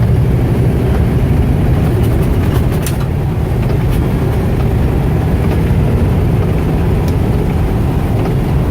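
Truck engine and road noise from inside the cab at highway speed, a steady low drone.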